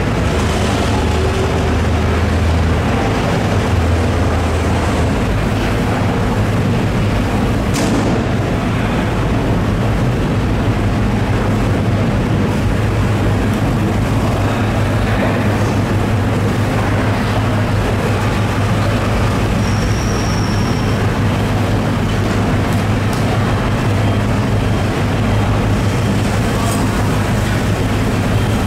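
Steady, loud low machine hum and rumble that keeps an even level without a break.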